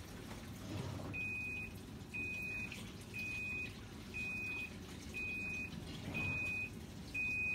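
An electronic beeper sounding a steady series of single high beeps, about one a second, starting a little over a second in.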